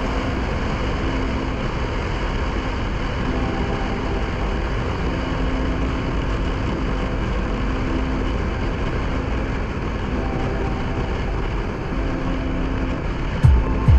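KTM Duke 390's single-cylinder engine running steadily at a cruise under heavy wind rush on the microphone. There is one short low thump near the end.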